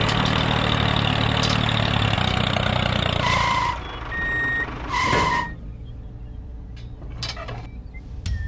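Engine running steadily, cutting off about three seconds in. Then come two beeps of a reversing alarm with a short, thinner tone between them, and a few faint clicks afterward.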